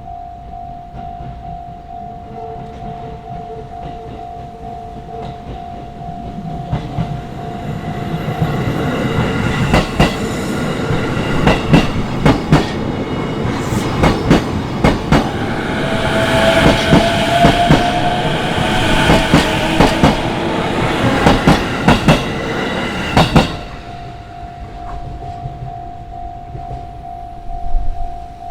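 Level-crossing warning alarm ringing as a steady tone, then a JR Itsukaichi Line electric train passes over the crossing for about fifteen seconds, its wheels rumbling and clacking sharply over the rail joints. The alarm is heard on its own again near the end.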